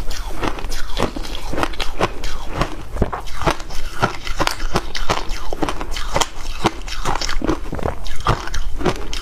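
Ice being crunched and chewed close to a clip-on microphone: a dense, irregular run of sharp crunches, several a second.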